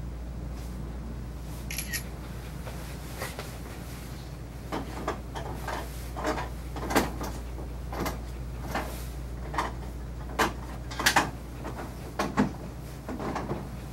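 Irregular light knocks and clicks, a dozen or more, beginning a few seconds in and coming more often towards the end, over a low steady hum.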